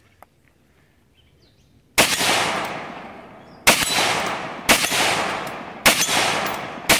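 Five rifle shots: the first about two seconds in, then four more roughly a second apart, each crack followed by a long echoing tail.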